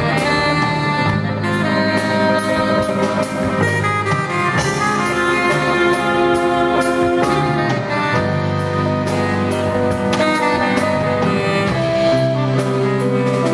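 Saxophone playing a melody line of held and moving notes over a live band, with regular drum hits underneath.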